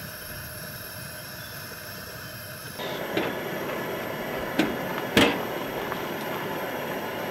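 Coleman two-burner camp stove burner running with a steady hiss under a pan of frying chorizo, getting louder about three seconds in. A spatula knocks twice against the frying pan around the five-second mark.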